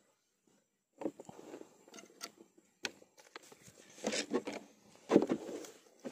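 A freshly caught kerandang snakehead being handled on the wooden floor of a dugout boat: irregular knocks, scrapes and rustling that start about a second in and get louder, with the sharpest knocks near the end.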